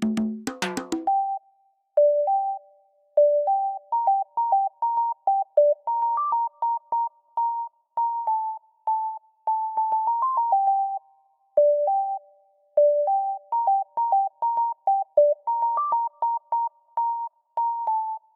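Simple synthesizer melody of short, pure beep-like notes in a steady rhythm, the same phrase starting over about halfway through. It opens with a few quick wood-block-like knocks.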